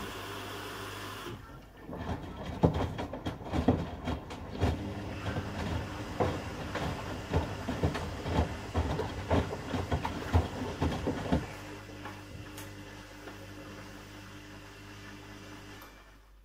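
Washing machines running mid-cycle, a steady motor hum with a run of irregular knocks and thuds lasting about ten seconds. The hum then carries on alone, fades, and cuts off near the end.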